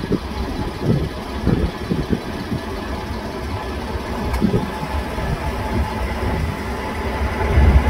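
Boeing 777F's GE90 jet engines at takeoff thrust as the freighter rolls down the runway: a steady distant rumble with a faint whine over it, getting louder near the end as the aircraft comes closer.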